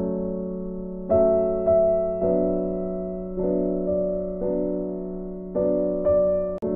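Piano background music: chords struck about once a second, each ringing and fading away, with a brief cut-out near the end.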